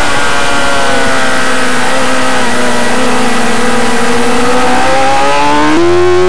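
Racing motorcycle engine heard from a camera mounted on the bike, with wind rush: the revs sag slightly while the bike is held leaned over through a corner, then rise as the throttle opens, stepping up sharply near the end.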